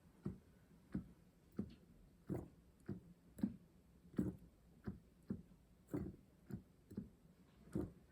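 Casio PX-S1100 digital piano's key action being played with no piano sound: about a dozen dull key knocks, a little under two a second at uneven spacing. The uploader judges this action a bit noisy.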